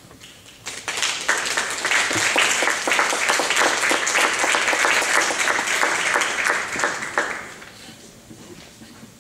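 Audience applauding, starting about a second in, holding steady for several seconds, then dying away near the end.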